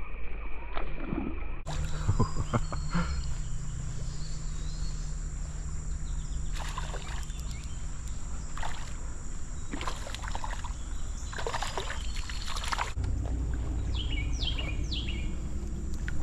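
Outdoor ambience by a creek: a steady noise bed with scattered clicks and knocks of handling gear, and a few short falling bird chirps near the end.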